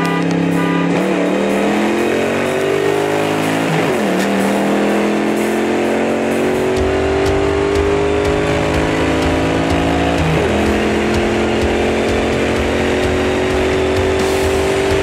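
Ford Mustang Mach 1's V8 engine heard from inside the car, accelerating through the gears. The pitch climbs steadily and drops sharply at upshifts about a second in, around four seconds in and near ten and a half seconds in.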